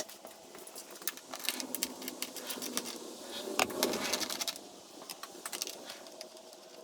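Hand tools clinking and rattling against metal and plastic in irregular small clicks, as bolts on a dirt bike's radiator shroud are worked with a 10 mm socket.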